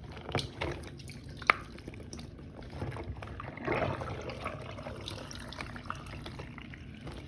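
Dirty soapy water draining out of a sink, with water sloshing and gurgling that swells about halfway through, and a few sharp knocks in the first two seconds, the loudest about a second and a half in, as things in the sink are handled.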